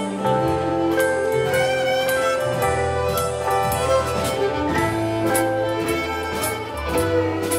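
Live contra dance band playing a tune: fiddle leading over keyboard and a steady drum beat.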